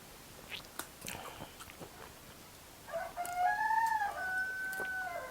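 A rooster crowing once, one long call of about two seconds starting about three seconds in. Before it, faint clicks and smacks of eating.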